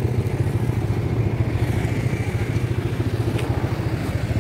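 A motorcycle engine idling close by, a steady low, fast-pulsing putter.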